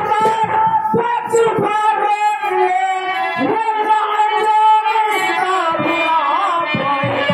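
A voice singing long, drawn-out melodic phrases through a public-address loudspeaker, with musical accompaniment.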